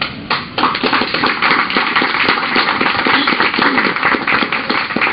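Audience applauding, a few first claps, then full, dense applause from about half a second in.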